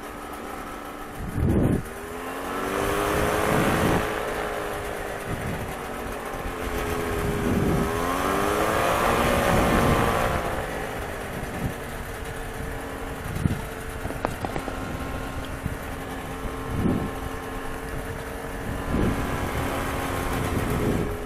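Kawasaki 440 two-stroke engine of an ultralight trike running, its pitch rising and falling twice with the throttle, then settling into a steady drone. Low thumps come and go over it.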